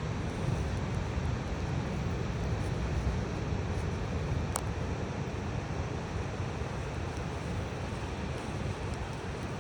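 Wind buffeting the microphone: a steady, deep rushing noise, with one faint click about halfway through.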